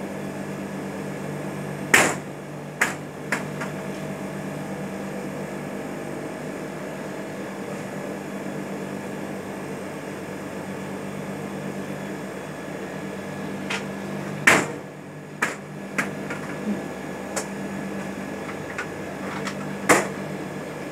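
Steady hum of a standing passenger train, its machinery running while the coaches wait, with a few sharp knocks, the loudest about two seconds in, again past the middle and near the end.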